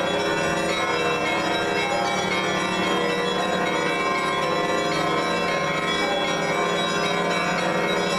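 Orthodox church bells ringing together at a steady level, the tones of many bells overlapping in a dense peal.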